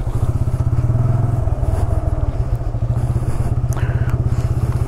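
Motorcycle engine running steadily at low revs as the bike is ridden slowly over a slippery forest track, its firing pulses even throughout.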